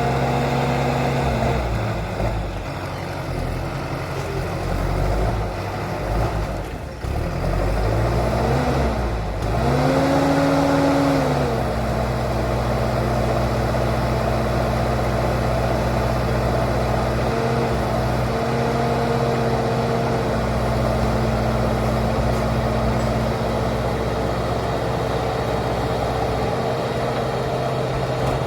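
Preet backhoe loader's diesel engine running at a steady idle. About nine to ten seconds in, the engine is briefly revved, its pitch rising and the sound getting louder, then it drops back to idle.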